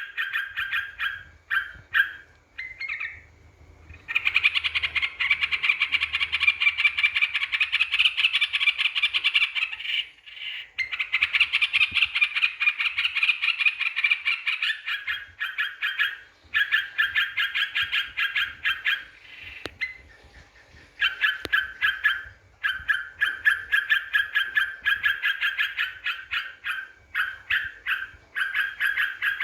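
Yellow-vented bulbul (trucukan) calling in long runs of rapid, bubbly chatter with short breaks. This is a lure call used to provoke rival birds into answering.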